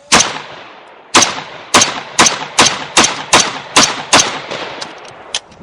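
AR-15 rifle (Smith & Wesson M&P15) firing nine shots: one, then after about a second eight more in quick succession, roughly two to three a second, each with a short echo. A few faint clicks follow near the end.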